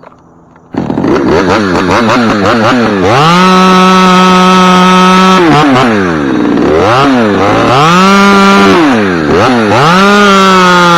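Two-stroke chainsaw starting up about a second in, running unevenly, then revved to a steady high pitch. The revs drop, are blipped up and down twice, and climb back to full near the end.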